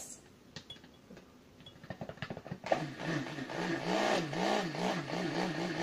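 Handheld stick blender starting up about two seconds in after a few light knocks, then running steadily with a wavering pitch as it mixes a cup of white cold-process soap batter.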